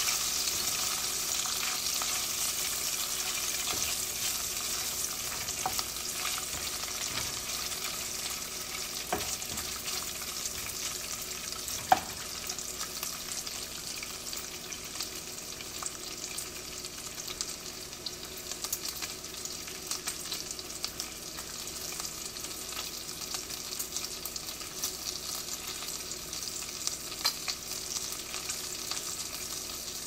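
Bacon sizzling in a pan: a steady hiss of hot fat, dotted with small crackles and one sharp pop about twelve seconds in.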